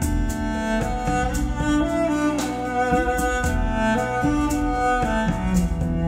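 Instrumental music played back over Totem Forest floor-standing loudspeakers: a bowed string melody with sliding notes over a steady bass line, with light ticking attacks in between.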